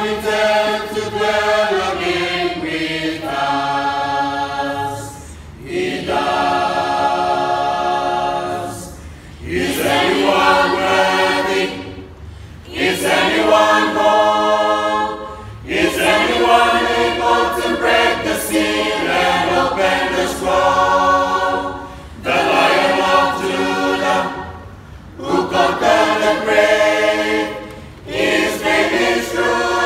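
Mixed-voice choir of men and women singing a hymn a cappella in harmony, in phrases a few seconds long with short breaks between them.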